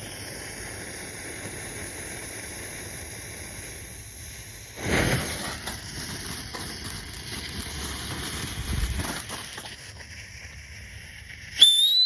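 Small frog novelty firework going off: a steady hiss, then about five seconds in a sudden rush and several seconds of fizzing, with a brief rising whistle near the end.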